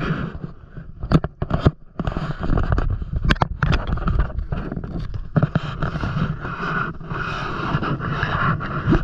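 Rustling and scraping handling noise on a handheld phone's microphone as it is carried against a nylon puffer jacket, with a few sharp clicks about a second in and again a little past three seconds.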